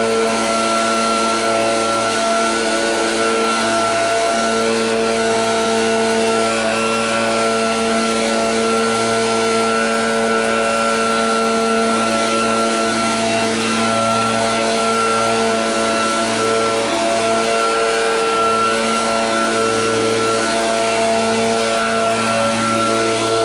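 Small gas engine of lawn equipment running steadily at full throttle, with background music over it.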